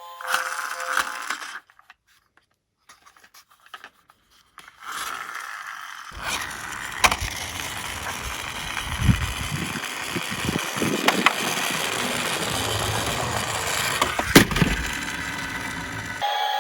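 Die-cast toy cars rolling down a slope, their wheels rumbling and scraping, with a few sharp clacks. It starts about five seconds in and builds.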